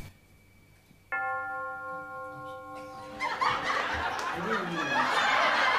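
After a moment's silence, a bell-like chime sound effect is struck once, about a second in, and rings for about two seconds as it fades. A burst of laughter then swells up and carries on.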